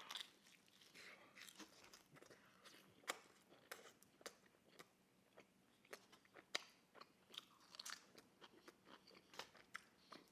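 Faint close-up chewing of thin-crust pepperoni pizza: irregular small crunches and mouth clicks, several a second.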